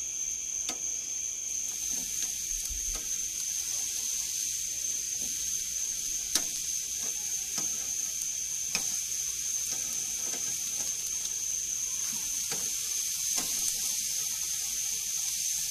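Marinated steaks sizzling on a hot grill as they are turned with metal tongs, with sharp clicks of the tongs against the grate every second or so.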